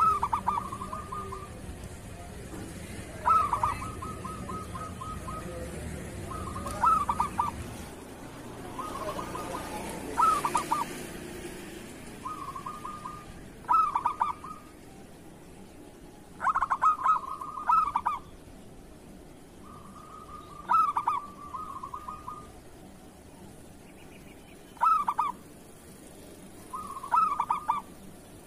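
Zebra dove (perkutut) cooing: phrases of rapid, stuttering coos, repeated every few seconds.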